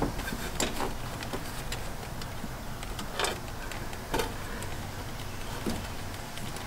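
A few short clicks and rustles of a plastic wiring connector and its wires being handled, over a steady low hum.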